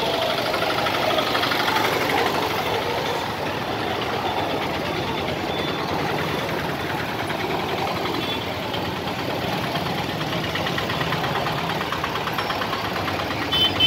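Street traffic in a slow jam: the small engines of motorcycles, scooters and auto-rickshaws idling and running close by.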